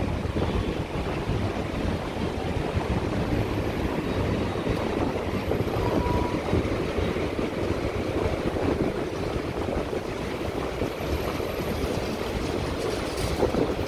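Steady rumble of city street traffic mixed with wind buffeting the microphone.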